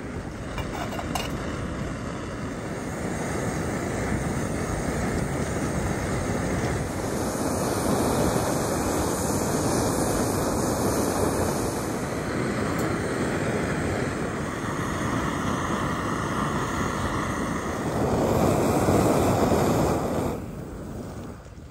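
Small screw-on gas canister stove burning at full flame under a mug of water, a steady rushing roar, with wind buffeting the microphone.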